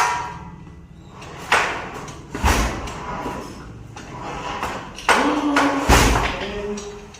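Power loom parts being knocked and shifted during disassembly: about five sudden heavy knocks and thuds, spaced unevenly over a few seconds.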